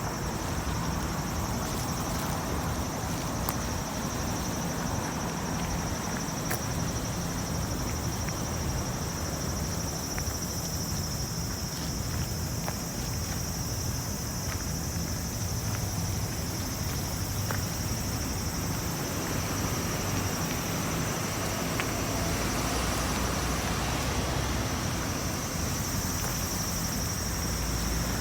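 Insects chirring in a steady high chorus, over a constant low rumble.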